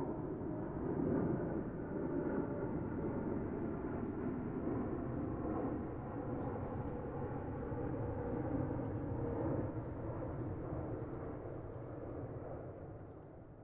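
Steady low rumbling ambience with a few faint held tones over it, fading out near the end.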